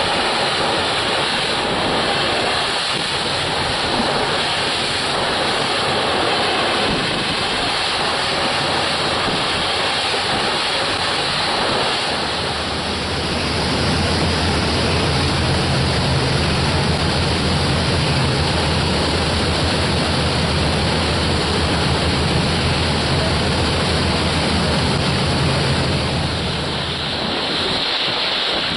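Steady rushing noise of surf and wind on the microphone. About halfway through, a low steady engine hum joins in, and it fades out near the end.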